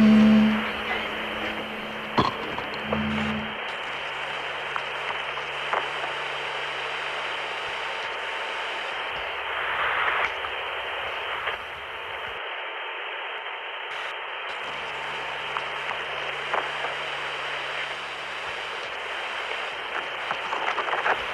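Narrow-band radio-style static hiss, like a telephone line or walkie-talkie channel, with a low electrical buzz and scattered crackles. The buzz is loudest at the very start, fades lower, and drops out for a couple of seconds past the middle while the hiss goes on.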